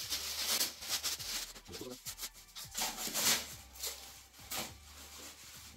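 Packing wrap rustling and crinkling in irregular bursts as a part is unwrapped by hand, fading toward the end.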